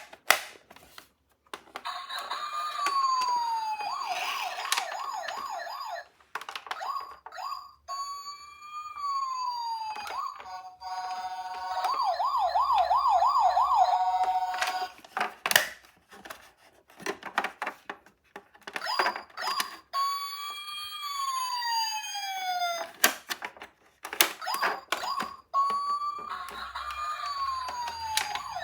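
Electronic sirens of toy ambulance minicars, sounding in short bursts that stop and restart many times, each a falling wail followed by a fast warbling yelp. Sharp clicks come between the bursts.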